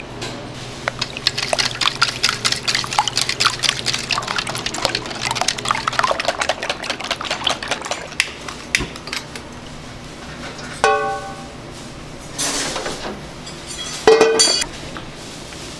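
Rapid clicking of a utensil against a stainless steel bowl of raw egg yolks being mixed, for about eight seconds. Later come clanks of a frying pan on a gas stove, with two short metallic rings, the louder one near the end.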